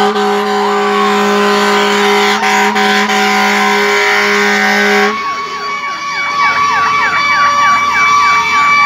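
Fire truck warning devices sounding loudly: a long, steady blaring tone for about five seconds, then a fast rising-and-falling yelp siren over a held higher tone.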